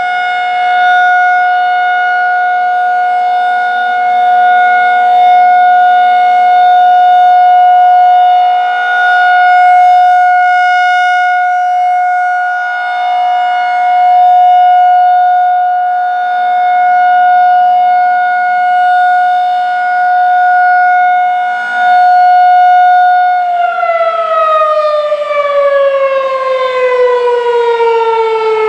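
Federal Signal 2001-SRN rotating electromechanical outdoor warning siren sounding its steady single-tone alert at about 720 Hz, the loudness swelling and fading. Near the end the alert stops and the siren winds down, its pitch falling steadily.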